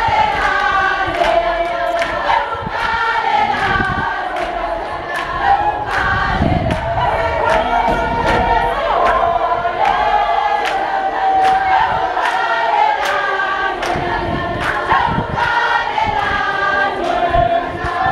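A large crowd of protesters singing a protest song together in chorus, many voices holding long sung lines, over a steady sharp beat about twice a second.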